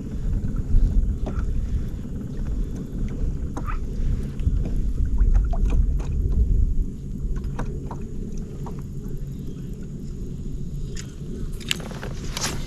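Low, steady rumble of wind on the microphone out on a kayak, heaviest in the first half, with scattered light clicks and a few sharper knocks near the end.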